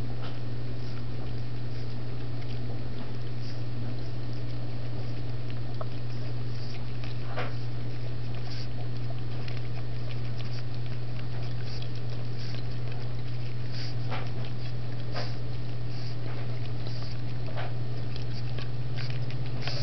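A pug puppy licking and lapping up leftover beer, with scattered wet clicks and smacks coming irregularly. A steady low hum runs underneath and is the loudest sound.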